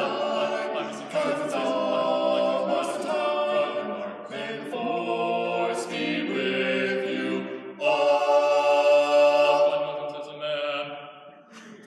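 Male four-voice a cappella group singing close-harmony chords, with a loud chord held for about two seconds near the end that then dies away.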